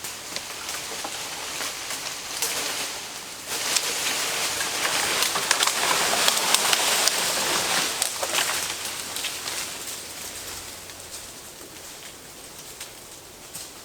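Leaves and branches rustling and crackling as a partly cut tree is dragged down by rope, with scattered twig snaps; loudest from about three and a half to eight seconds in, then dying away.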